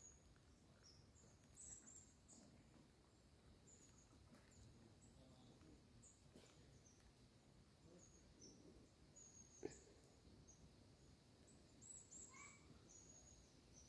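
Near silence, with faint, high, short bird chirps now and then and a single brief click about two-thirds of the way through.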